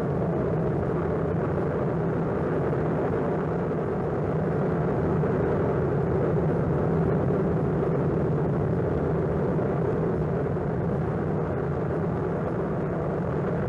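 Steady, unbroken roar and rumble of Kilauea in violent eruption, its lava fountains and flows, heard on an old mono 16mm film soundtrack.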